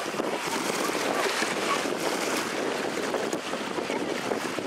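Small lake waves lapping in the shallows, a steady wash of water noise.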